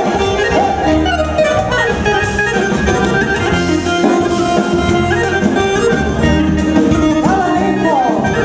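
Live band music led by accordion and saxophone over a steady, repeating bass beat.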